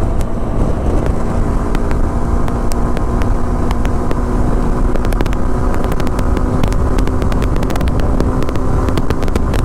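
Motorcycle engine running steadily at highway speed, about 110 km/h, with heavy wind rumble and scattered clicks on the microphone.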